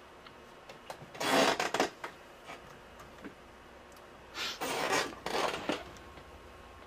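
Rubbing and scraping handling noise from someone leaning over a desk and reaching around a laptop, in two bursts: one about a second in, a longer one from about four and a half seconds in.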